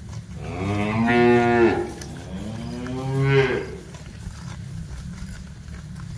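Cattle mooing: two long moos one after the other, the first starting about half a second in, each rising a little and then falling away, over a low steady rumble.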